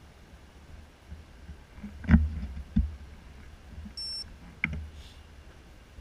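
A few scattered knocks, the loudest about two seconds in, and a short high beep about four seconds in, over a faint low rumble.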